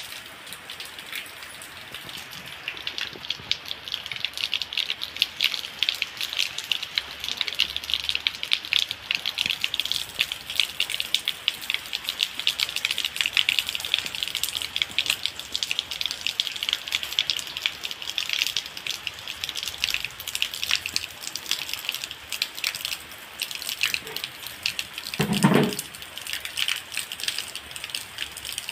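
Heavy rain pattering steadily on leaves and soil, with a stream of runoff water splashing into a plastic bucket. Near the end a brief dull thud stands out, louder than the rain.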